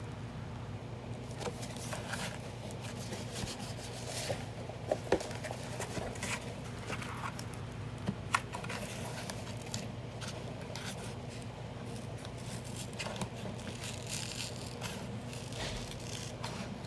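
Room tone: a steady low hum with a few faint clicks and light rustling, loudest as sharp ticks about five and eight seconds in.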